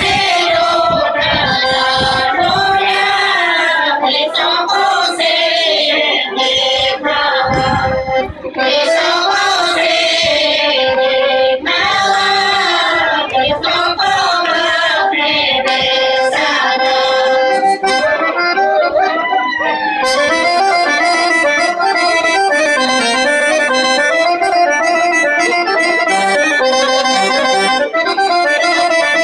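A women's folk group singing a Bulgarian folk song in unison with accordion accompaniment. About two-thirds of the way through, the voices stop and the accordion plays on alone.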